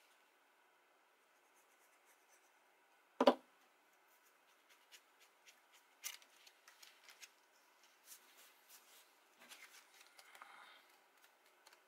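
Quiet hand handling of paper cardstock on a tabletop as glued card pieces are pressed in place: one sharp knock about three seconds in, then scattered light taps and a brief paper rustle near the end.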